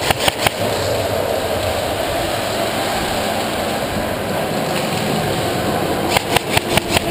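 Airsoft rifles firing: a quick string of about half a dozen shots near the start and another about six seconds in, each string at roughly six or seven shots a second, with a steady rushing noise between them.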